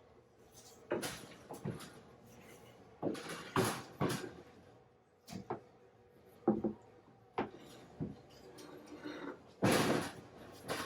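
Irregular knocks, bumps and scuffs as a large 3D-printer print bed is carried and set down onto the printer frame's uprights, with a longer, louder bump near the end.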